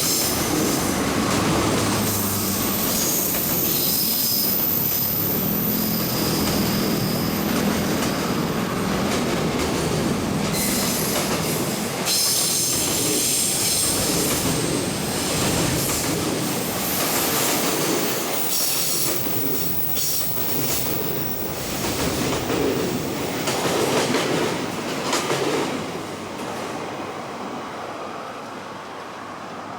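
Freight train wagons rolling past, their wheels squealing on the rails with a clickety-clack over the rail joints. It stays loud, then fades away near the end as the train clears.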